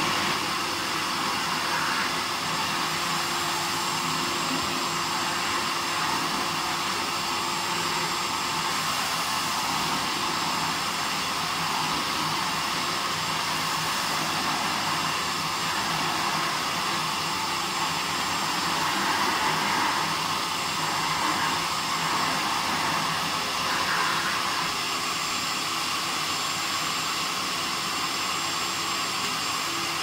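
1990 Hoover Compact Exclusive 800 (S3600) cylinder vacuum cleaner running steadily, its motor whining over the rush of suction as the wand is worked over carpet. The sound swells a little a few times as the floor tool moves.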